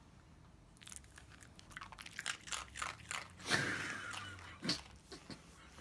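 Small shih tzu-dachshund mix dog crunching and chewing a hard treat: a quick run of crisp crunches begins about a second in and is loudest about halfway through.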